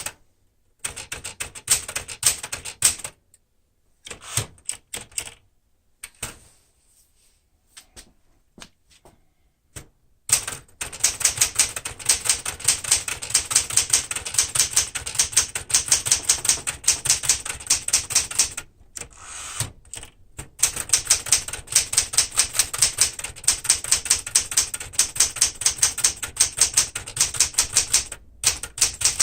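1973 Smith-Corona Galaxie Twelve manual typewriter being typed on: a few scattered key strikes with long gaps, then from about a third of the way in, fast, even runs of clacking keystrokes with two brief pauses.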